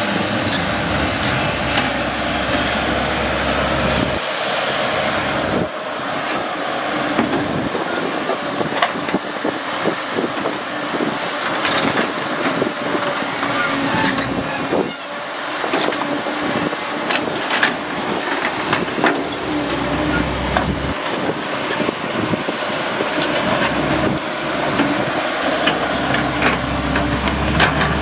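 Caterpillar 312 hydraulic excavator working: its diesel engine running with a load that rises and falls as the arm and bucket move, with repeated knocks and clanks of the bucket and tracks in the soil.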